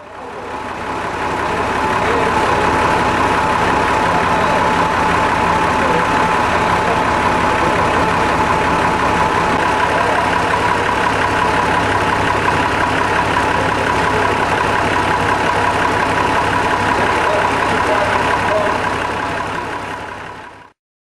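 Diesel locomotive engine idling steadily, with a constant whine over a low rumble; it fades in at the start and fades out near the end.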